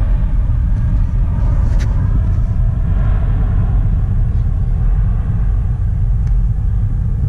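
Car rolling along with a loud, steady low rumble from its worn-out wheel bearings.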